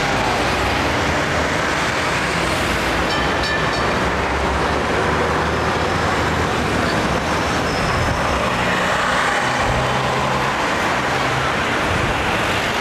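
Busy street traffic with double-deck electric trams and motor traffic running past: a steady mix of engine hum, tram running noise and road noise, with a short high ringing about three and a half seconds in.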